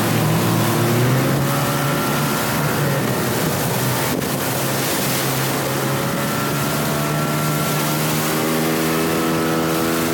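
Outboard motor of an inflatable boat running at speed, a steady engine drone over the hiss of rushing water and wind. A single brief click about four seconds in.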